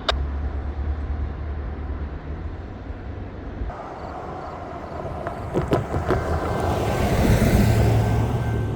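Road vehicle passing, growing louder to a peak about seven to eight seconds in and then easing off, over a low rumble in the first few seconds.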